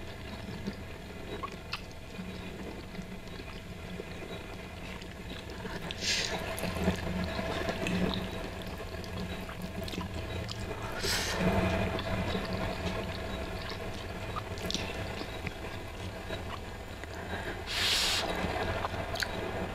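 Close-up mouth sounds of a person eating saucy instant noodles: wet chewing, with three short slurps of noodles, the longest near the end.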